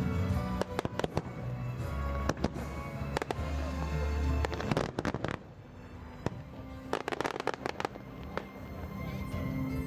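Fireworks crackling and banging in rapid clusters, with music playing underneath. The bursts thin out about halfway through, then come back in a shorter flurry.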